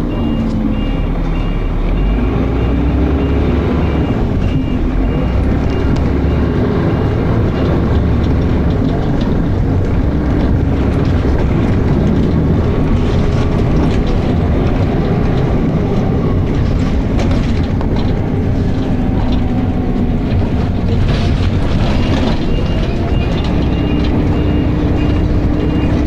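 Dennis Arrow bus engine and ZF automatic gearbox heard on board under way, the engine note falling and rising as the revs change, on a gearbox that is slipping. A repeating high beep sounds near the start and again near the end.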